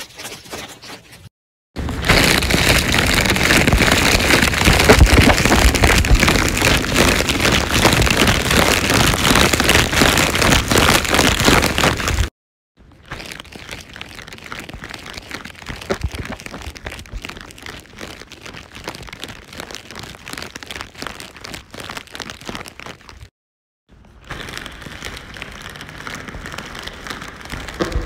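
Plastic rattle shaken in a dense, continuous rattle through a voice changer effect. It comes in three stretches broken by brief dead-silent gaps, the first loud and the two later ones much quieter.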